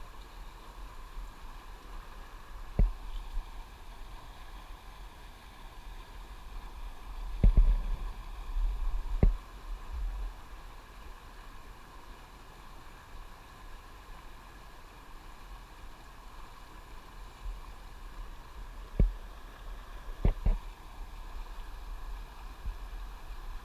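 Steady rush of fast-moving river water, with a few short dull knocks and bumps scattered through it.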